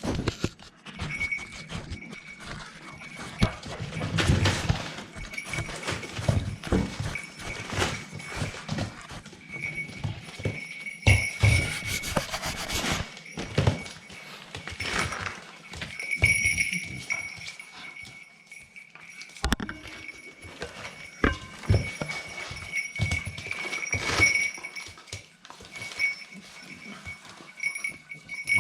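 Staffordshire bull terrier puppies scrambling and play-fighting, their paws and claws making irregular clicks, patters and thumps on a hard floor.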